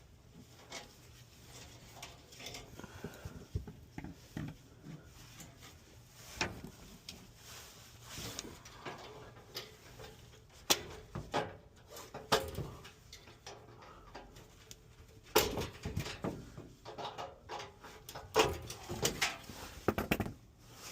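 Irregular clicks, knocks and rattles of metal parts and wiring being handled while a furnace blower motor is worked on; they grow busier and louder about halfway through.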